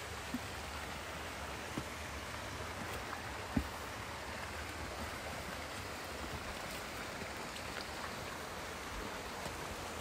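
Steady rushing of a mountain stream, with a few faint clicks and one short knock about three and a half seconds in.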